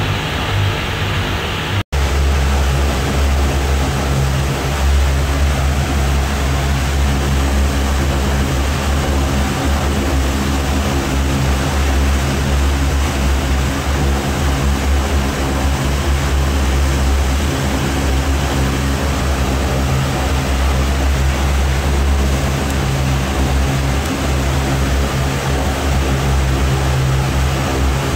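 Rotec R2800 seven-cylinder radial aero engine running steadily during its first test run as a brand-new engine. The sound drops out for an instant about two seconds in.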